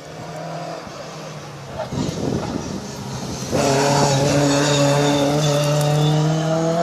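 Classic rally car engine: engine and road noise build over the first few seconds, then a loud, steady engine note comes in suddenly about halfway and climbs slowly in pitch.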